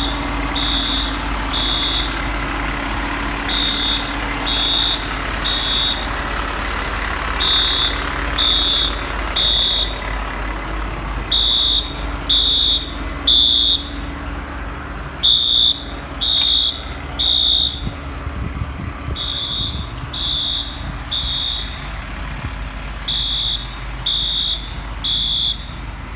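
Building fire alarm sounding the temporal-three evacuation pattern: three high beeps about a second apart, a pause, repeating about every four seconds, louder from about ten seconds in. Underneath, a fire truck's engine idles steadily.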